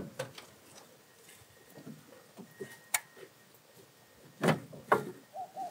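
Scattered metal clicks and knocks as a cylinder head is worked loose and lifted off the engine block of a Mitsubishi 6G74 V6, with two louder clunks close together a little before the end.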